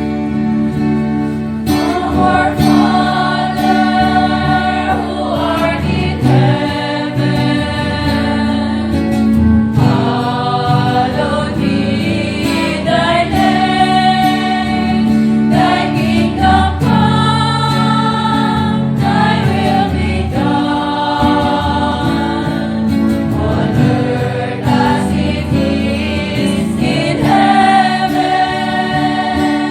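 Church choir singing a worship song in long sung phrases, accompanied by guitars.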